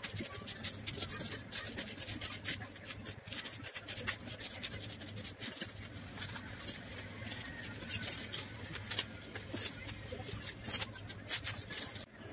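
Scissors snipping through newspaper in a run of short, irregular cuts, with the paper rustling as it is turned and handled.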